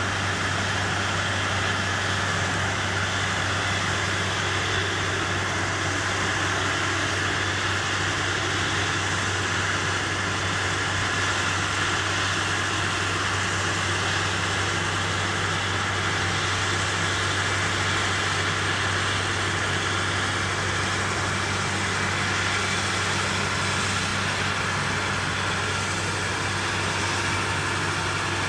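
Claas Lexion 750 combine harvester running steadily while threshing maize and unloading grain into a trailer alongside: an even machinery drone with a low hum underneath.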